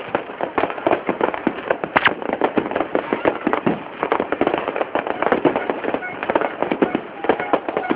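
Fireworks going off in a dense, unbroken run of bangs and crackling pops, many each second, with one louder bang about two seconds in.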